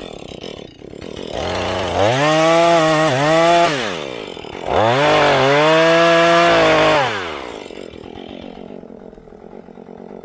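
Husqvarna 435 two-stroke chainsaw throttled up to full revs twice, each time for about two seconds, then dropping back to a low idle near the end, while cutting into a tree.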